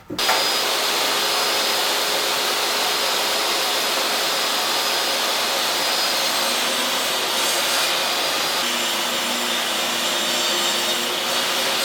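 Table saw running steadily while ripping a rough-cut pine board lengthwise to width.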